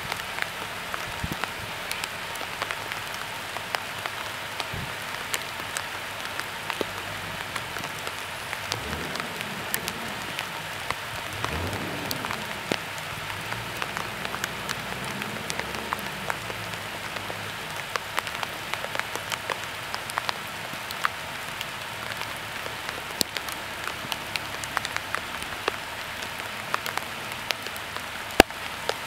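Steady rain falling, a continuous hiss with many sharp drop taps throughout.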